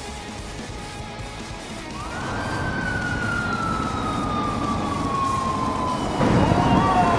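A police motorcycle's siren starts up about two seconds in. Its pitch climbs quickly, then falls slowly in one long wail. About six seconds in, louder traffic and engine noise comes in under it, with a second wavering tone.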